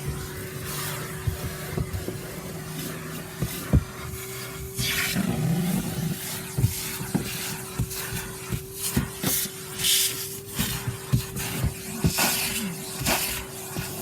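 Vacuum cleaner running with a steady whine while its nozzle knocks and scrapes around a car's interior, with irregular clicks and short rushes of air as debris is sucked up, the strongest about five, ten and twelve seconds in.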